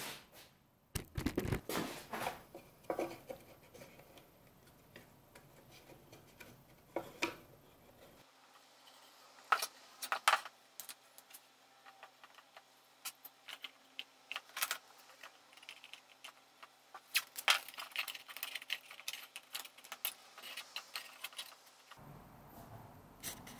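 Scattered clicks and light knocks of small plastic bar clamps and wooden box parts being handled and clamped on a workbench during a glue-up.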